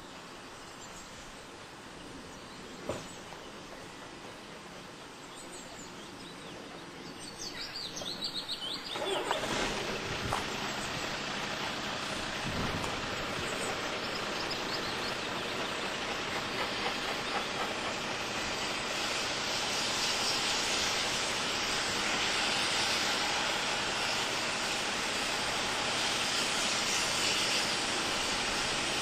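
BR Standard Class 4MT 2-6-0 steam locomotive No. 76079 approaching with its train: faint at first, then from about a third of the way in a steady hiss of steam and the rumble of the train, growing louder to the end.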